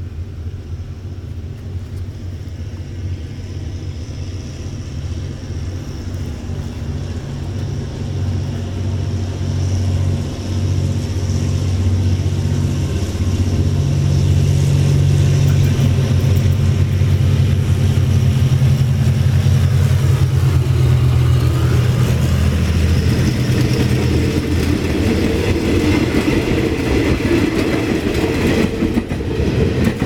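GEK-class diesel-electric locomotive hauling a passenger train, its engine's low steady drone growing louder as it approaches and peaking as it passes about two-thirds through. The engine note then fades under the rumble of the coaches' wheels on the track.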